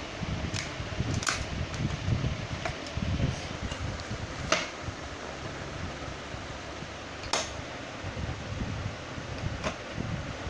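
Handling noise from the metal frame and plastic parts of a child's tricycle being fitted together: low rubbing and bumping, with about five sharp clicks and knocks, the loudest about four and a half seconds in. A steady background hum runs underneath.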